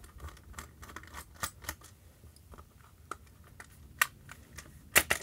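Small screwdriver turning out screws from a plastic torch housing: scattered light clicks and ticks of the tool and plastic, with a few sharper clicks, the loudest near the end.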